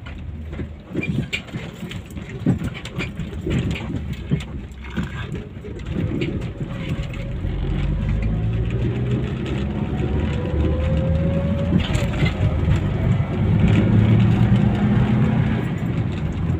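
Car heard from inside the cabin while driving. Knocks and rattles over a broken, potholed road come first. From about six seconds in, the engine pulls harder, and a steady drone and a whine rise in pitch as the car speeds up on smoother asphalt.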